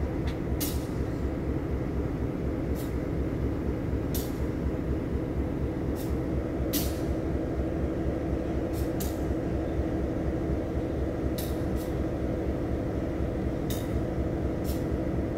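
Parked freight train's diesel locomotive idling with a steady low rumble and a held hum. Short high clicks come at irregular moments every second or so.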